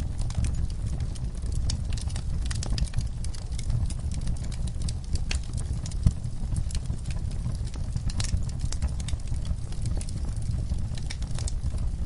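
Wood fire burning in a fireplace: irregular sharp crackles and pops over a steady low rumble of flames, with one louder pop about halfway through.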